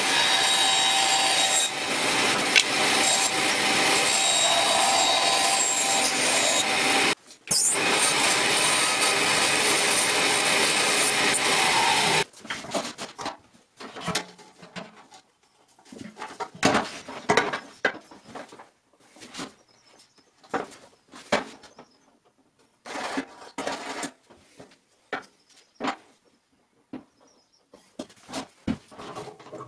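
Bandsaw running and cutting through a thin board, a steady loud rasp with a faint whine, which breaks off briefly about seven seconds in. From about twelve seconds on it gives way to scattered light knocks, clicks and scrapes as a metal trash can and its plastic lid are handled on the bench.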